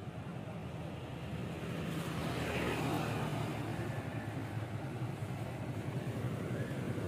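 Street traffic: motorbike engines running, with one riding past a couple of seconds in over a steady low rumble.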